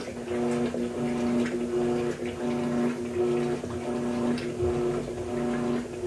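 Electrolux LT13B top-loading washing machine agitating: the motor hums in short strokes of well under a second, stopping and starting as the agitator reverses, with water churning in the tub.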